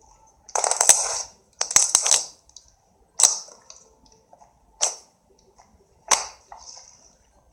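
Thick slime being squeezed and pressed by hand, crackling and popping as trapped air bursts: two longer crackly squishes in the first two seconds or so, then three single sharp pops about a second and a half apart.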